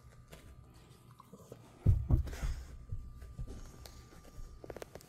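Jindo dog chewing a snack close to the microphone, with a dull knock about two seconds in and a quick run of small clicks near the end.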